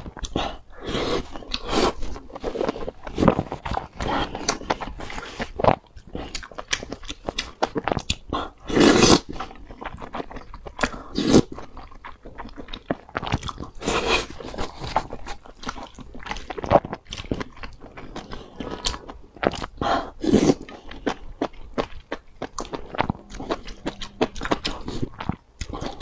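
Close-miked mukbang eating sounds: a person chewing and biting saucy, spicy food, with wet mouth clicks and smacks in quick succession. Several louder slurps come as pieces are sucked in from the chopsticks.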